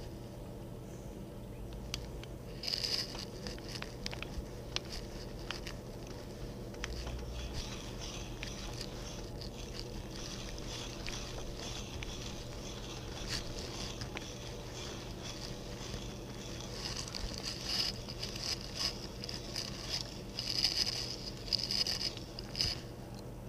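Antique Irwin auger bit turned in a hand brace, boring into a poplar board: a soft scraping rasp of the cutters paring wood, coming in bursts with the turns of the brace and busier in the last few seconds.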